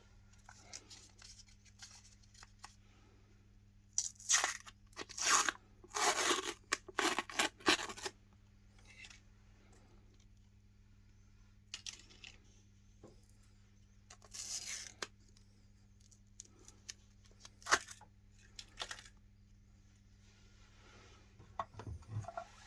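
Big ice cream cones being handled, with crisp crackling and tearing in bursts, densest from about four to eight seconds in, then a few single crackles, over a faint steady low hum.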